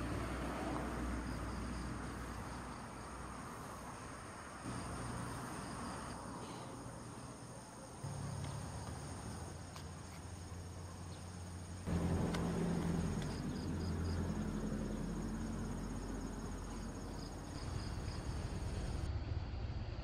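Crickets and other night insects trilling steadily, with short pulsed chirps now and then, over a low background rumble that grows louder about eight and again about twelve seconds in.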